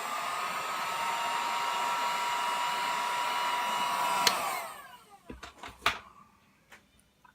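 Heat gun blowing with a steady whine over a rush of air, switched off with a click about four seconds in and winding down in pitch. It is used to soften the adhesive holding the digitizer glass. A few sharp clicks follow.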